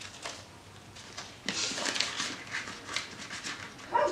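A pet dog making noises, with the rustle of clear plastic zip envelopes being handled.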